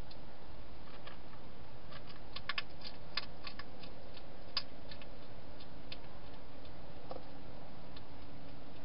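Wild hedgehog chewing dry food in a plastic feeding station: irregular sharp crunching clicks, thickest in the middle, over a steady hiss.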